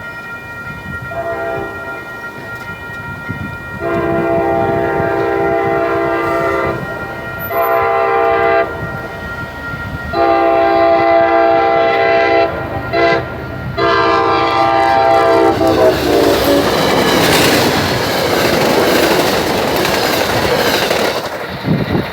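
MBTA HSP46 diesel locomotive sounding its air horn as a chord of several tones. A softer blast is followed by a series of long and short blasts, including two quick toots. About 16 seconds in the horn dips in pitch and fades as the train passes, giving way to the loud rush and clatter of its wheels on the rails.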